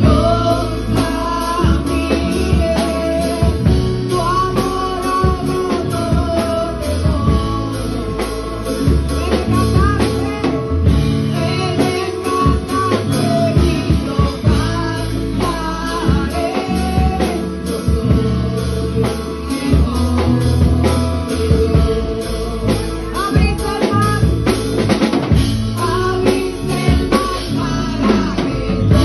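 A woman singing a Spanish-language worship song into a microphone, over a band with a steady drum-kit beat.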